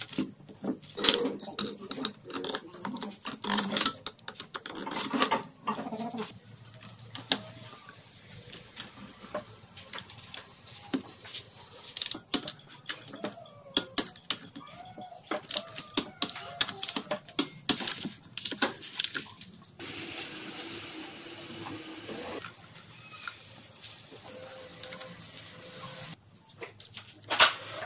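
Clicks and clinks of metal hand tools and engine parts as a Yamaha Serow 225 engine's cylinder head is fitted and its bolts are tightened with a torque wrench, over a steady high hiss. The clicking is dense at first and thins out after about twenty seconds.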